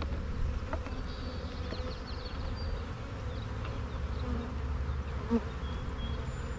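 Honeybees humming steadily over an open hive box as a frame is pried loose and lifted out, with a few light wooden clicks and one sharper knock about five seconds in.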